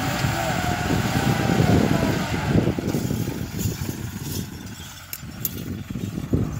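Massey Ferguson 385 4WD turbo tractor's diesel engine working under load as it pulls a four-tine mouldboard plough through the soil, growing fainter after about three seconds as the tractor draws away.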